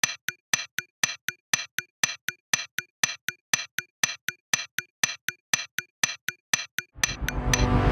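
Evenly spaced, sharp, bright ticks, about four a second, identical each time, like a clock-tick sound effect laid over the footage. Music fades in near the end.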